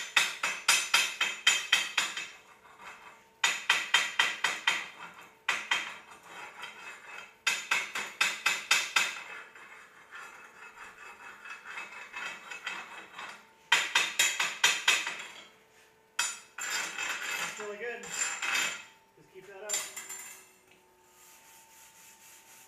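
Chipping hammer knocking slag off 6010 stick-weld beads on steel plate: fast metal-on-metal strikes, about eight a second, in bursts of one to two seconds with short pauses between.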